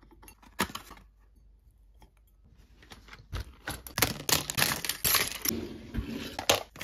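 Household objects being handled and put away in plastic storage crates: a few scattered clicks, then a busier clatter of knocks and rattles from about three seconds in.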